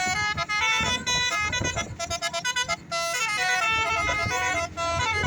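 Bus telolet 'basuri' musical horn playing a melody of quick stepped notes, one pitch after another, with a brief break partway through.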